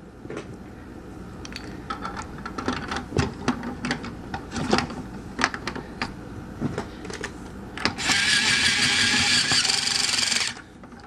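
Plastic toy parts clicking and knocking as the propeller and its screw are fitted, then a battery-powered toy drill runs steadily for about two and a half seconds, driving the screw in, and stops abruptly.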